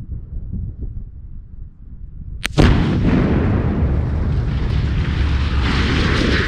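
Tannerite charge exploding about two and a half seconds in: a sharp crack, then a loud boom that keeps rumbling for several seconds.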